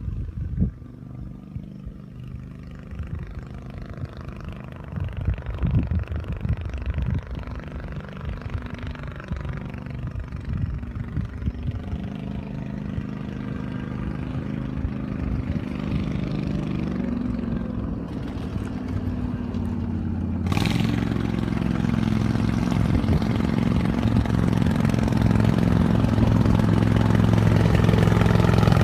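Engine of a homemade six-wheeled 6x6 vehicle running steadily and growing louder as the vehicle comes closer, with wind buffeting the microphone in the first several seconds. About two-thirds of the way through, the engine is suddenly much louder and close by.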